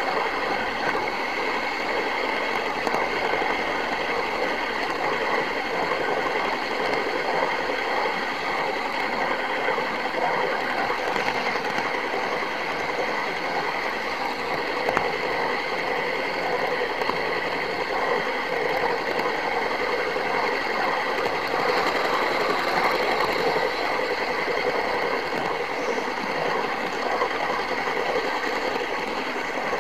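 OO-gauge model train running, heard from on board: a steady whir and rattle from its small electric motor, gears and wheels on the track.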